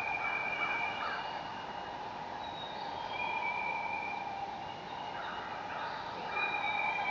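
Nature-sound recording played by the mushroom lamp: birds calling in long, steady whistled notes at several different pitches over a continuous hiss.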